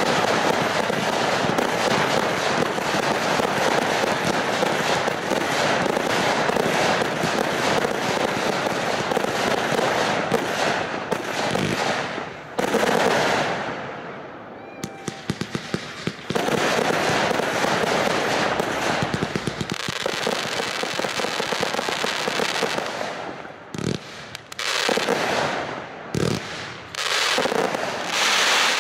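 Aerial fireworks display: a dense barrage of shell bursts and crackling. It thins out about halfway through, builds again, and near the end breaks into a few separate volleys.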